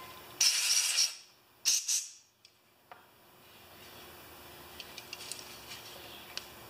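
Two short bursts of pressurised spray hissing over small carburettor and fuel-pump parts, the first lasting under a second and the second shorter. A few faint light ticks of small parts being handled follow.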